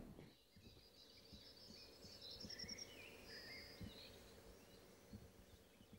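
Faint birdsong over quiet woodland ambience: a quick run of high repeated notes in the first half, then a few short chirps.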